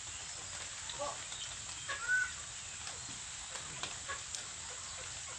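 A young peafowl gives a few short chirping calls over a steady background hiss. The loudest call comes about two seconds in.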